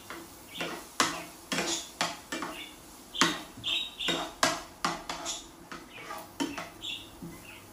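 Steel spoon scraping and clinking against a frying pan while stirring chopped onion, in irregular strokes about one or two a second, with a few short high squeaks from metal rubbing on metal.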